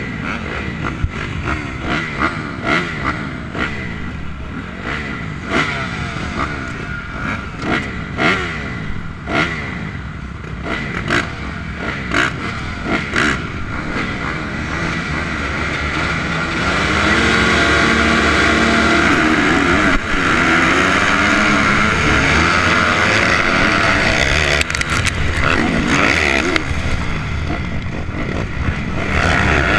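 A field of motocross bikes on the starting line, engines idling and repeatedly blipped. From a little past halfway they are held at high revs and get much louder, and the pack races off the start with engines at full throttle.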